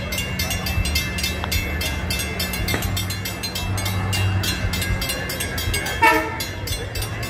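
Long Island Rail Road diesel train running with a steady low engine drone. About six seconds in there is a short, loud tonal blast.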